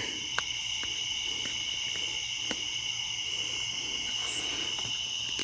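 Steady chorus of night insects holding several unbroken high tones, with a few faint clicks of a plastic tube being handled in the first half.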